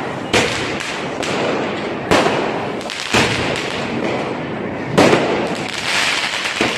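Firecrackers going off: a continuous dense crackle, with four sharper, louder bangs standing out over it.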